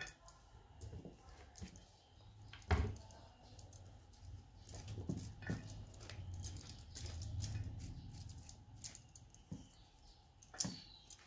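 Soft clicks and taps of hands working a peeled bottle gourd on a wooden chopping board as its seeds are scooped out, with one louder knock nearly three seconds in.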